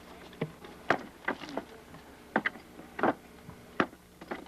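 Irregular sharp knocks and cracks of old, dry wood being worked apart, about nine in a few seconds; the wood is dry and punky.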